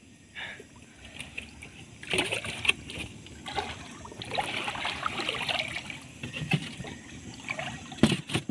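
Water splashing and trickling as a large, wet eel-like fish is handled and set into a styrofoam box, with a couple of sharp knocks near the end as the box's lid is put on.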